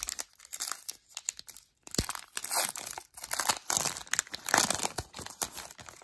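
Foil wrapper of an Upper Deck hockey card pack being torn open and crinkled by hand: a run of irregular crackling tears, with a sharp snap about two seconds in and the loudest crinkling in the middle.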